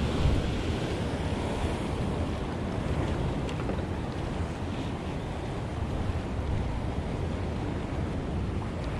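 Sea surf washing and breaking against the rocks at the foot of the cliff, a steady rushing sound with a heavy low rumble of wind on the microphone.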